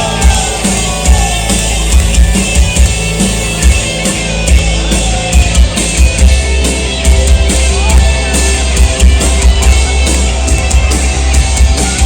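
Live folk-metal band playing an instrumental passage: a drum kit hitting rapidly over heavy bass and guitars.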